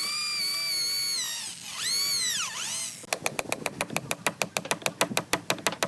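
A power tool's motor whining at a steady high pitch, sagging and picking up speed twice as if under load. About three seconds in it gives way to rapid, even clicking, about seven a second.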